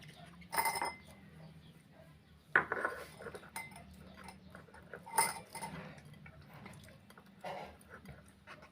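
Kitchen utensils and dishes clinking: four separate knocks, each with a short ring, spaced about two seconds apart.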